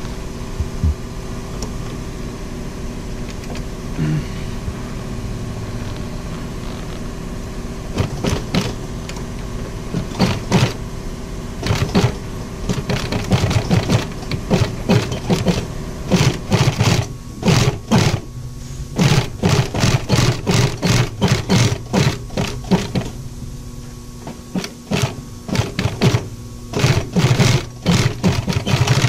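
Industrial sewing machine stitching the thick, padded seam of a car sun visor in slow stop-start runs, its motor humming steadily between runs.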